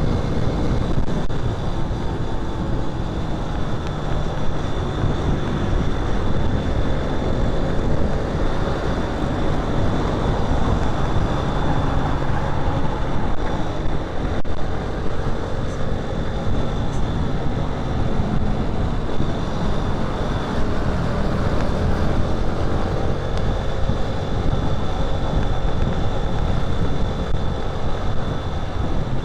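Motorcycle engine running on the move, its pitch drifting slowly up and down, with a steady rush of wind on the microphone.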